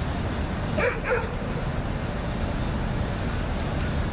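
A dog barking twice in quick succession, about a second in, over a steady low background rumble.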